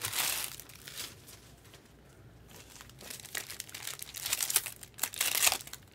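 Trading-card pack wrappers crinkling and tearing as packs are ripped open by hand. It comes in short bursts near the start and again in the second half, with a quieter stretch between.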